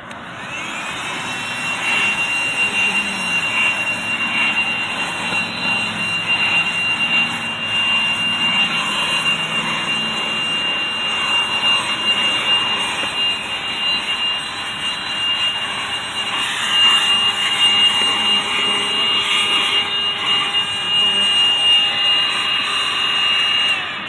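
MATCC 12 V 110 W corded handheld car vacuum switched on, its motor spinning up to a steady high whine over a rush of suction air that varies as the nozzle moves over the cloth seat. It is switched off just before the end, and the whine falls away.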